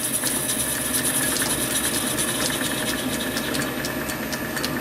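Small metal lathe running steadily with its three-jaw chuck spinning, the tool taking a light facing cut across the end of a solid brass bar. A steady motor whine with many faint ticks.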